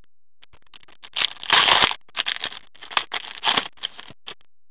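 Foil wrapper of a hockey trading-card pack crinkling and tearing as it is ripped open, with a louder tear about one and a half seconds in and quick crackles after it.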